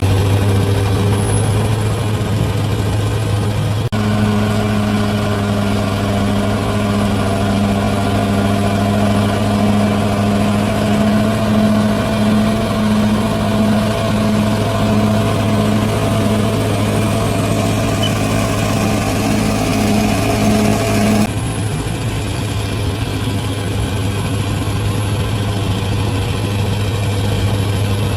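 Bulldozer's heavy diesel engine running steadily under work. An added higher whine joins about four seconds in and cuts off abruptly about two-thirds of the way through.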